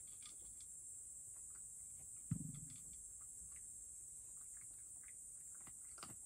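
Cat eating from a shallow dish: faint, scattered small clicks of licking and chewing, with one dull thump about two seconds in, over a steady high hiss.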